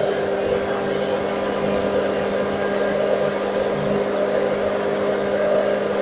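Handheld hair dryer running steadily on heat: the rush of blown air over a steady low motor hum. Its heating element, the cause of a no-heat fault, now works again.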